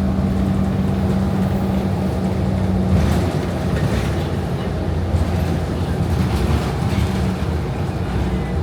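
Steady low engine drone with road noise inside a city bus's cabin.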